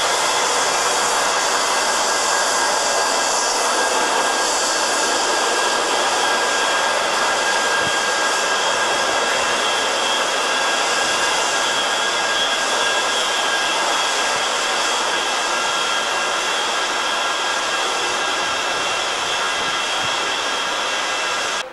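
Boeing 737-200's Pratt & Whitney JT8D jet engines running steadily at low power: a high whine over an even rushing hiss.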